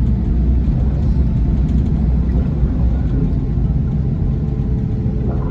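Scania K450 coach's inline-six diesel engine running steadily with a deep, even rumble.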